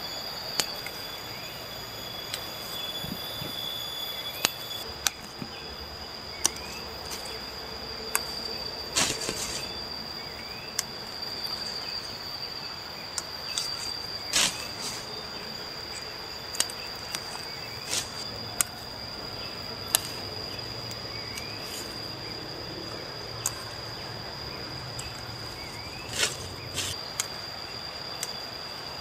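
Cassava leaf stalks snapping off as they are picked by hand, a sharp snap every second or two with some leaf rustling, over a steady high-pitched insect trill.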